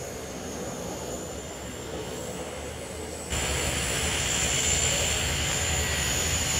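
De Havilland Canada Twin Otter's two turboprop engines running as the ski-equipped plane lands and taxis on snow: a steady rushing noise with a thin high whine. About three seconds in the sound jumps suddenly louder and closer.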